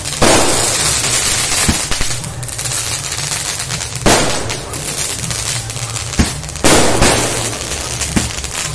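200-shot 'Night Flower' aerial sky-shot firework cake firing shells that burst overhead: loud bangs near the start, about four seconds in and about six and a half seconds in, each trailing off over a second or two, with smaller pops in between.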